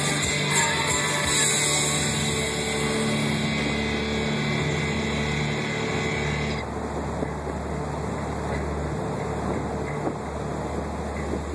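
Rock music with guitar that cuts off abruptly a little past halfway, leaving the steady hum and road noise of a car driving along, heard from inside the cabin.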